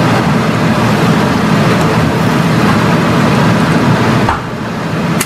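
Loud, steady background din with a heavy low rumble, easing off about four seconds in.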